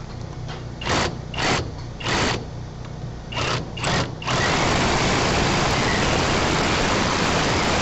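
Power drill boring through the wall for a hose-bib stub-out: several short trigger bursts, then it runs steadily from about four seconds in.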